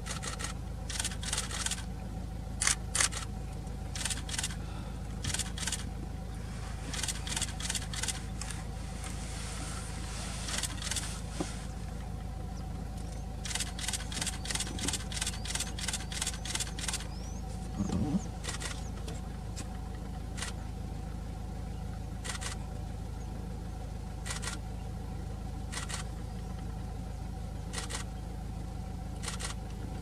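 Runs of sharp, quick clicks, several a second in some stretches and scattered in others, over a steady low hum.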